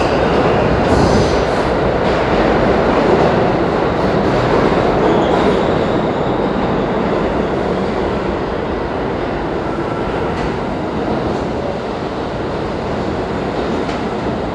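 R46 subway train pulling into an underground station along the platform: steady loud rumble of steel wheels on the rails, with faint high wheel squeal now and then, easing slightly as the train slows.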